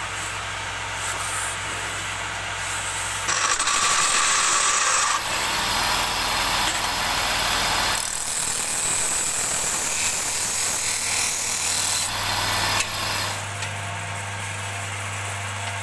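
Wood lathe running with a steady motor hum while a hand-held turning tool cuts the spinning wood. The scraping cut changes every few seconds as the tool is moved, loudest about three to five seconds in.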